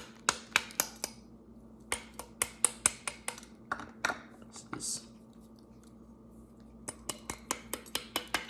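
Quick runs of sharp clicks and clinks, hard items knocking against a plate or cutlery, in three or four short spells with pauses between.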